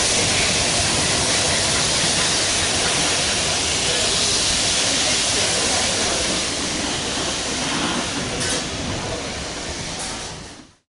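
A steam-hauled train of carriages rolling away down the line: a steady rushing hiss that slowly fades, with a couple of faint clicks near the end, then cuts off abruptly.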